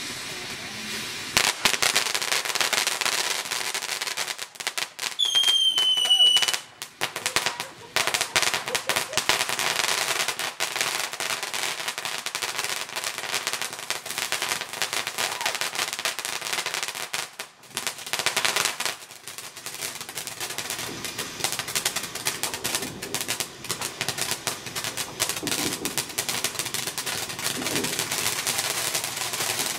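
Black Cat Bellagio Fountain firework fountain spraying sparks with dense, rapid crackling, interrupted by a couple of brief lulls. A short, high whistle with a slightly falling pitch sounds about five seconds in.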